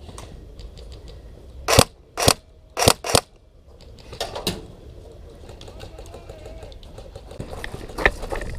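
Four airsoft gun shots in quick, uneven succession, followed by fainter clicks and rustling.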